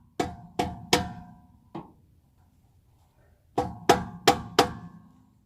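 A hammer tapping a 1977 Chevy Nova's hubcap onto the wheel, each blow a sharp knock with a short metallic ring. Three blows come in quick succession, then a lighter one, and after a pause four more.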